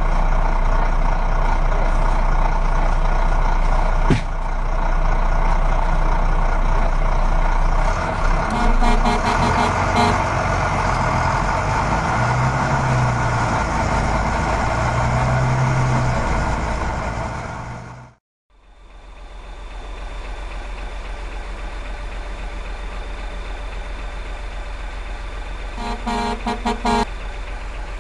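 A full-size truck engine runs steadily, with a burst of short horn toots about nine seconds in. It cuts out abruptly about two-thirds of the way through and comes back as a quieter steady idle, with another quick series of horn toots near the end.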